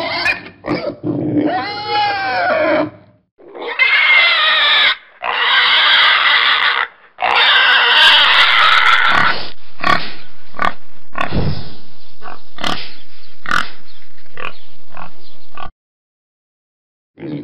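Pig grunting, then squealing in three long, shrill cries, followed by a run of short, quick grunts. The sound stops abruptly near the end.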